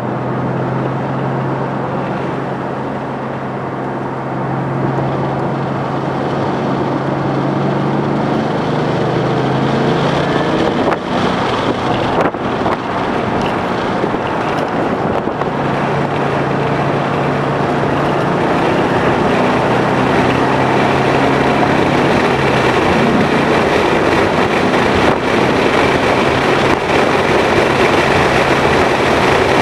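2011 Mustang GT's 5.0-litre V8 running hard on a race track, with wind noise over the microphone. The engine note holds steady for about ten seconds, breaks up for a few seconds, then comes back and runs on to the end.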